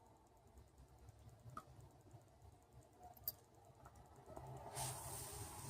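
Near silence: room tone with a few faint clicks, and a soft hiss coming in near the end.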